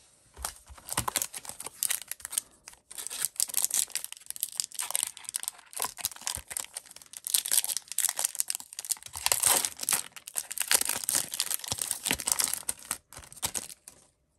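Plastic foil wrapper of a hockey card pack being torn open and crinkled, a dense irregular crackling that stops shortly before the end.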